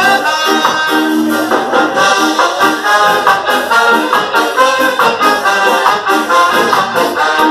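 Live ska band playing an instrumental passage, a brass section of trombone and trumpet carrying the melody over a steady upbeat rhythm.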